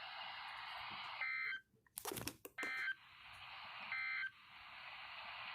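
Radio hiss broken by three short bursts of EAS data tones, each about a third of a second long and about a second apart, with a few clicks between the first two. The burst pattern matches the end-of-message signal that closes an Emergency Alert System warning.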